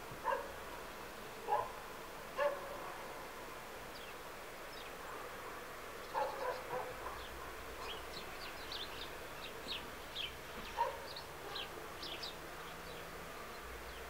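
Small birds, sparrows and tits, give many short, high chirps through the middle and later part. Mixed in are several louder, lower calls: three about a second apart near the start, and a few more later.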